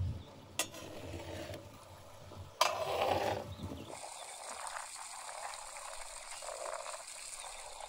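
A long metal spoon stirring liquid in a large metal cooking pot, knocking sharply against the pot twice in the first three seconds. After that the sound settles to quiet outdoor background.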